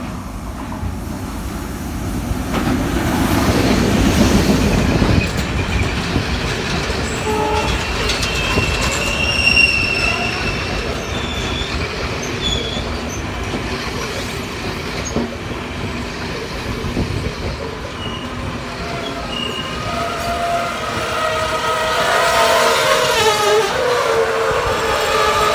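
A Sri Lanka Railways Class M10-A diesel locomotive passing close by, its engine's low rumble loudest a few seconds in, followed by its passenger coaches rolling past: steady wheel rumble and clickety-clack on the rails, with high wheel squeals here and there, growing stronger near the end.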